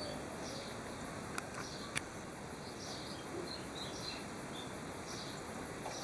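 High-pitched chirping in the background, short chirps repeating every second or so over a steady hiss, with two sharp clicks between one and two seconds in.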